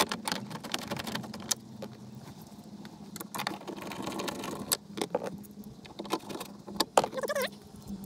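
Plastic lower dash trim panel being pressed and snapped into place: an irregular run of clicks, knocks and rattles, with a short wavering squeak of plastic rubbing about seven seconds in.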